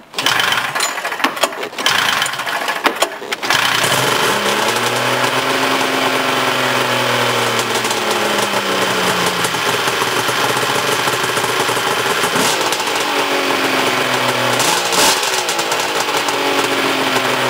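Arctic Cat three-cylinder two-stroke snowmobile engine being started cold, with a few seconds of irregular sputtering before it catches about three and a half seconds in. It then idles with its speed drifting slowly down and up. The start shows that the rewound stator is working.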